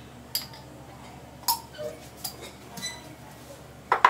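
Light clinks and taps of kitchen utensils and containers knocking together, about five over four seconds, the loudest near the end.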